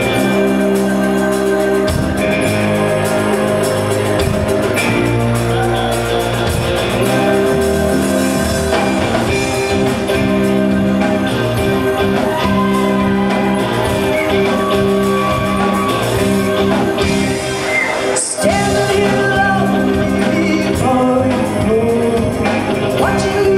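Live rock band playing: electric guitars, bass, drums and keyboards, with long held chords running under the band.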